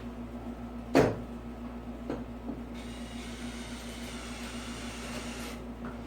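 A sharp knock about a second in and a lighter one a second later, then a cordless drill driving a screw through wooden shims, a faint steady whine for about three seconds, over a constant low hum.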